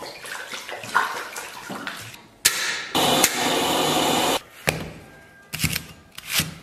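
A gas stove burner under a wok running on high: after a sharp click, a loud steady rush for about a second and a half that cuts off suddenly. Near the end, a Chinese cleaver chops a scallion on a wooden chopping board, a few quick strokes.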